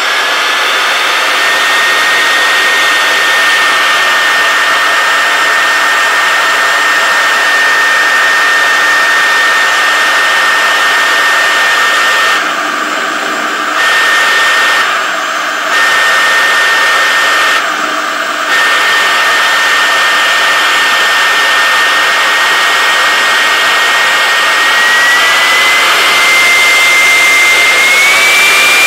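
Columbo 5 hp three-phase router spindle running at high speed on an inverter drive: a steady high whine over the loud rush of its cooling fan. The whine climbs in pitch at the start as the drive is taken up to about 300 Hz, dips in level briefly three times midway, then steps up in pitch twice near the end as the speed is raised further.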